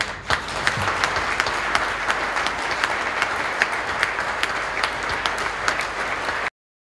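Audience applauding: a steady round of clapping that cuts off abruptly near the end.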